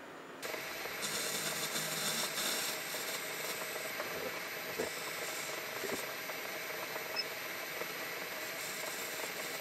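Metal lathe starting up about half a second in and then running steadily, its spindle and gears whirring as a turning tool cuts down the diameter of a small valve guide held in a four-jaw chuck.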